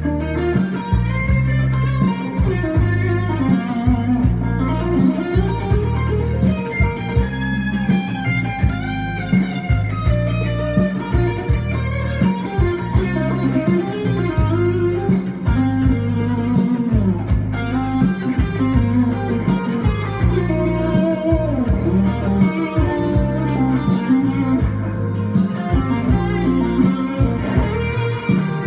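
Electric guitar playing a lead solo of quick melodic lines over a backing track of an 80s song, with drums and bass keeping a steady beat.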